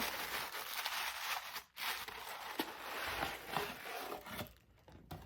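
Packaging being opened by hand: paper and wrapping rustling and crinkling in two stretches with a short break, dying away near the end.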